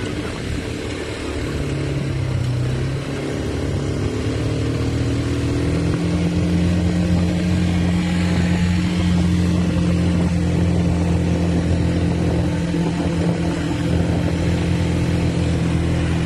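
ATV (quad bike) engine running under way, climbing in pitch in steps as it gathers speed over the first six seconds, then holding a steady pitch at speed.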